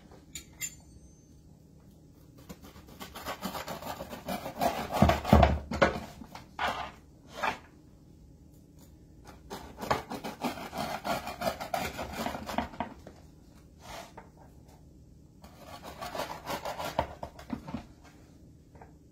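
Pizza-cutter wheel rolling and scraping through a baked pizza crust onto a wooden board, in three passes with short pauses between them and a dull thump about five seconds in.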